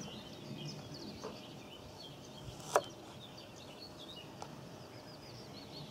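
Chef's knife slicing peeled ginger into long strips on a bamboo cutting board, with one sharp knock of the blade on the board almost three seconds in and a couple of fainter taps. Small birds chirp faintly in the background.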